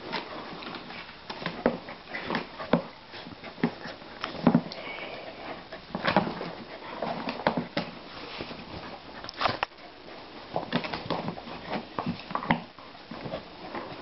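A dog being stroked and patted by hand close to the microphone: irregular rustling of fur and soft taps, with the dog sniffing.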